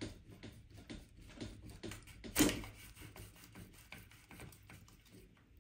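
A steel hinge pin being twisted and pulled out of a billet aluminium suspension arm with end-cutting pliers: a run of small metallic clicks and scrapes, with one sharper click about two and a half seconds in.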